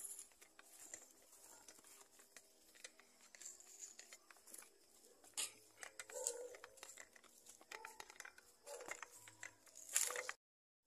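Irregular rustling and crackling with scattered light clicks, the kind of sound made by handling things or pushing through dry vegetation close to the microphone. A louder rustle comes about ten seconds in, and then the sound cuts off suddenly.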